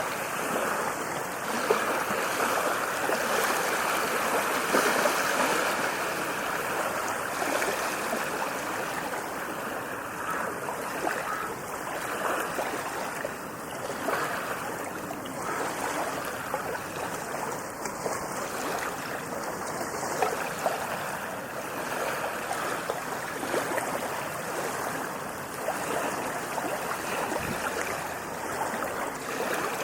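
Ocean waves washing on a shore: a continuous rushing wash that swells and eases gently every few seconds.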